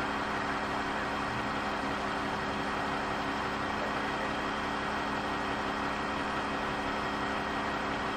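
Sanitation garbage truck's engine idling steadily, a constant hum with no change in speed.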